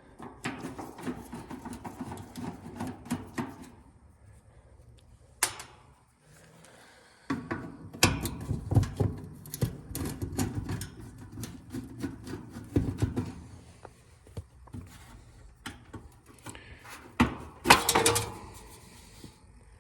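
Irregular knocks, clicks and rattles of hands and tools working on an AC condenser unit. There is a sharp knock about five seconds in, a busy stretch of clattering in the middle, and a loud cluster of knocks near the end.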